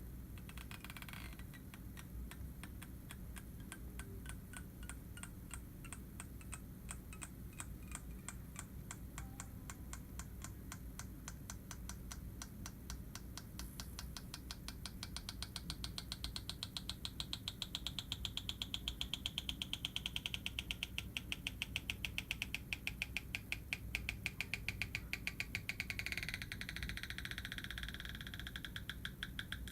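Stretch-release adhesive strip under an iPhone 5s battery being pulled out slowly, giving a rapid, even run of small ticks that grows louder through the middle and softens near the end.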